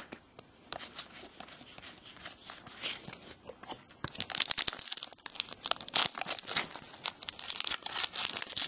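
A trading-card pack's foil wrapper being crinkled and torn open by hand, the crackling getting busier and louder about four seconds in.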